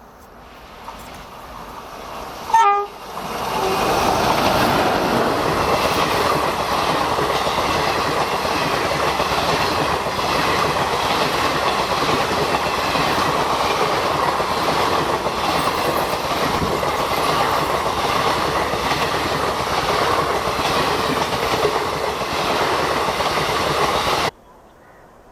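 Express train passing at about 100 km/h: the approach builds, then the locomotive's horn gives one short blast about two and a half seconds in. After that comes a loud, steady rush and clatter of the coaches' wheels on the rails for about twenty seconds, cut off suddenly near the end.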